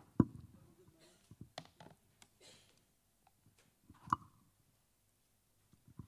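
Handling noise from a handheld microphone: scattered clicks and knocks, the loudest a sharp knock just after the start and another thud about four seconds in.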